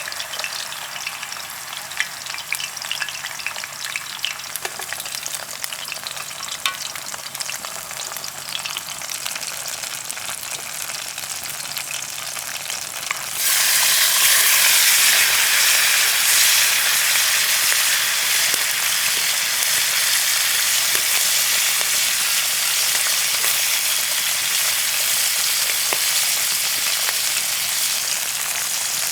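Plantain slices frying in coconut oil, a steady crackling sizzle with scattered pops. About 13 seconds in, a much louder hissing sizzle starts suddenly and holds: shrimp sautéing in hot butter.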